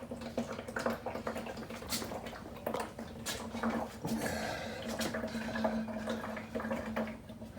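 Used engine oil draining from the 4A-GZE engine's oil pan into a drain pan, a continuous splashing trickle with irregular small drips and spatters. A steady low hum runs underneath.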